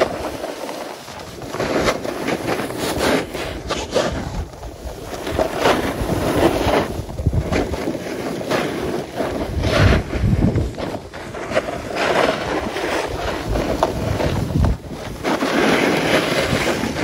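Wind buffeting the microphone of a camera carried by a skier moving downhill, with the hiss and scrape of skis on packed snow rising and falling in uneven swells through the turns.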